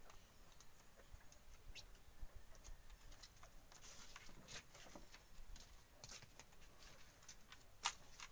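Faint, scattered crisp clicks and ticks of a knife slicing and shredding a raw banana heart over a plate, with a sharper click near the end.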